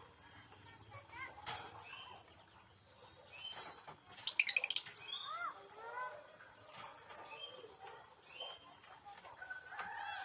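Lovebirds chirping: a scatter of short chirps that slide up and down in pitch, with a quick rattling burst about four and a half seconds in and a longer held call near the end.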